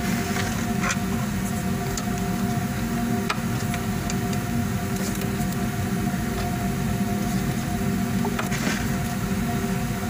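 A steady low machine hum at an even level, with a few faint clicks as hands handle the drain hose.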